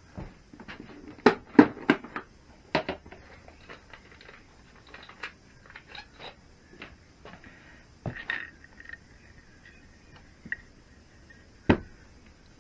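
Sharp metallic clicks and knocks of small parts and tools being handled on a workbench, a quick cluster of the loudest ones about a second and a half in, then scattered lighter clicks and a last sharp knock near the end.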